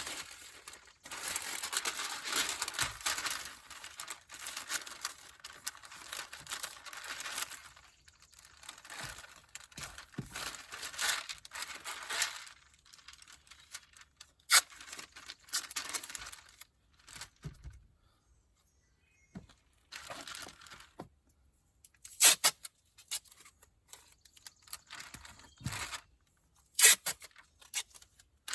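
Masking paper crinkling and masking tape being pulled off the roll and torn, in two long stretches near the start, then shorter rustles and a few sharp snaps.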